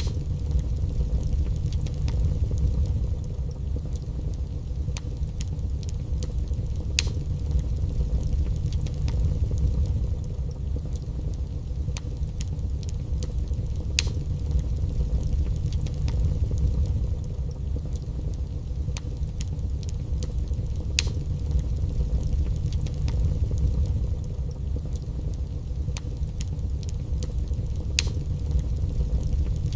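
Wood fire burning in a fireplace: a steady low rumble with scattered sharp crackles and pops, a few of them louder.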